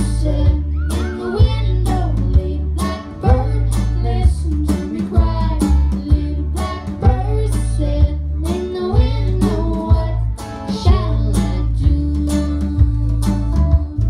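Live country-folk band playing: a young girl singing lead over a small acoustic guitar, upright bass, electric guitar and a snare drum keeping a steady beat.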